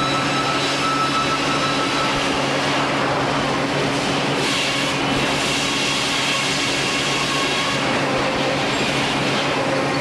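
Sawmill machinery running: a steady electrical hum under a loud, even mechanical noise from the conveyors and carriage equipment.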